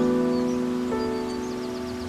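Music: a held piano chord slowly fading, with a soft new note added about a second in.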